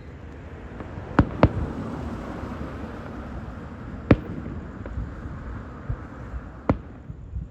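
Aerial fireworks going off: two sharp booms in quick succession about a second in, another around four seconds, and one more near the end, with a steady crackling hiss between them.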